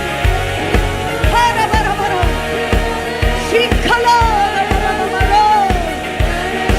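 Worship-band music: a steady drum beat about two beats a second under a high melody line with sliding, falling phrases.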